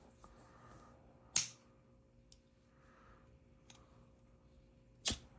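Two sharp clicks from a Zippo Contempo butane lighter, one about a second in and one near the end.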